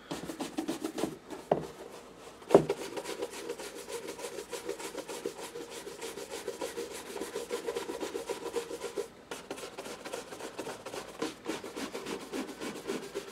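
Horsehair shoe brush stroked rapidly back and forth over a leather shoe, buffing off Saphir Renovateur conditioner, a dry bristle scrubbing in quick even strokes that pauses briefly about nine seconds in. One sharp knock stands out about two and a half seconds in.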